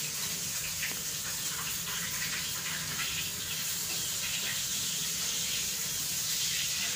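Steady hissing background noise with faint, scattered small ticks.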